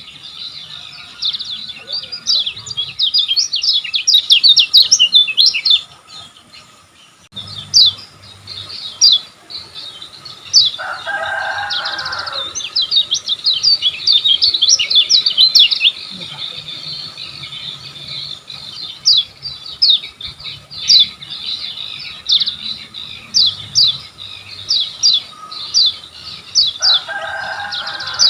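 Kecial kuning singing in rapid runs of short, high, downward-sweeping chirps, with a brief lull partway through. A separate lower call of about a second and a half sounds about eleven seconds in and again near the end.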